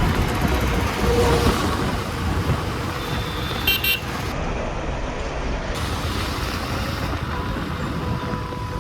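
Road traffic noise, with a brief high horn toot about four seconds in.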